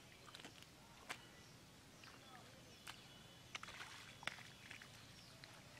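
Near silence outdoors: a faint background with a few scattered soft clicks and short faint chirps.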